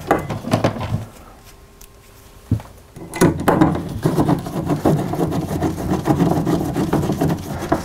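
Hand screwdriver turning the cover-plate screws into a steel electrical box: the rasping, rubbing sound of screws driven home. There is a quieter lull with a single click about two and a half seconds in.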